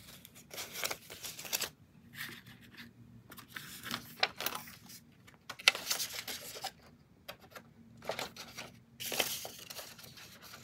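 Paper banknotes and clear plastic binder envelopes rustling and crinkling as bills are handled and slid into an envelope, in short irregular bursts.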